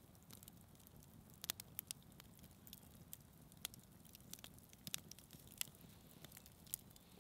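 Wood campfire crackling faintly, with irregular sharp pops about twice a second over a low hiss.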